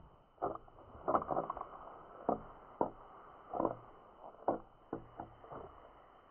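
Irregular series of about a dozen short, dull knocks and pops, some in quick clusters, in an underwater sound recording.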